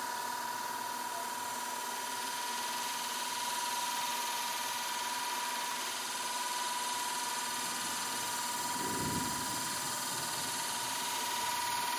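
Steady outdoor background noise: an even hiss with a faint constant tone, and a brief low sound about nine seconds in.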